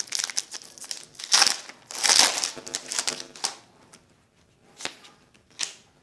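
Foil wrapper of a Pokémon TCG booster pack being crinkled and torn open, loudest in the first three seconds. It then falls quiet, with a couple of faint short rustles near the end.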